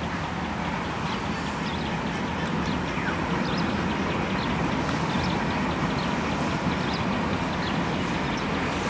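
Diesel locomotive of an approaching express train running, a steady low rumble that slowly grows louder, with scattered short bird calls over it.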